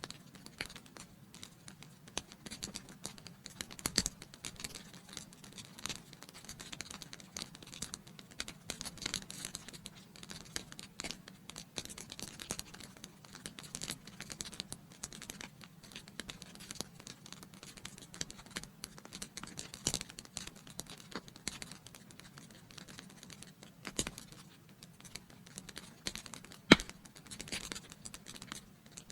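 Wood fire in a fireplace crackling steadily, a dense run of small irregular snaps over a low hush of flame, with a few louder pops standing out, the sharpest near the end.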